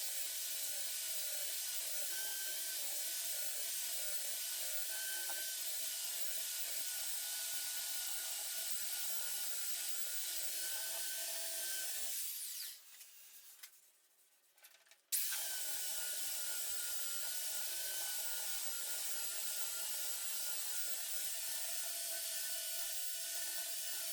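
Electric power sander running steadily against the epoxy-filled teak table top, a continuous abrasive hiss with a faint motor whine. About halfway through it fades out for around three seconds, then comes back abruptly at full level.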